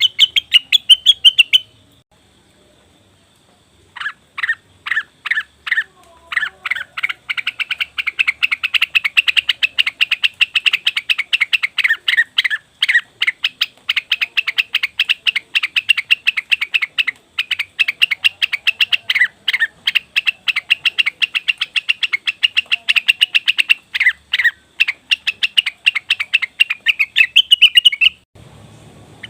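Cucak wilis (greater green leafbird) calling in fast, repeated chattering notes, used as a lure call. A short burst at the start, a pause of about two seconds, then a long rapid run of notes that stops just before the end.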